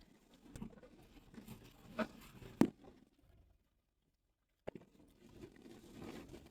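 Footsteps crunching in snow, roughly one step every two-thirds of a second, broken by about a second of dead silence near the middle.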